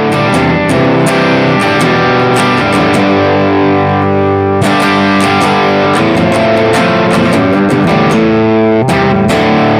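Distorted electric guitar played through an overdrive circuit, held chords and notes changing every second or so with crisp pick attacks.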